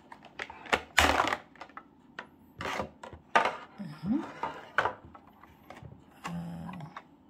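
Clear plastic blister packaging crackling and clicking in about five short bursts as a plastic phone holder is pulled out of its tray, the loudest about a second in.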